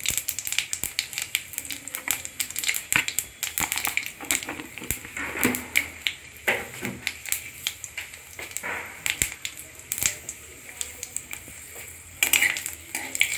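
Panch phoron (Bengali five-spice seeds) spluttering in hot oil in a karai with bay leaves: many quick, irregular crackles and pops as the seeds temper. Near the end a metal spatula comes in and the sound grows louder and busier.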